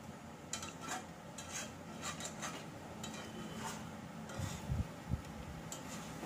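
Metal spatula scraping and clinking against a metal kadai as chunks of chicken and vegetables are stirred and turned, with scattered light scrapes and a few dull low knocks near the end.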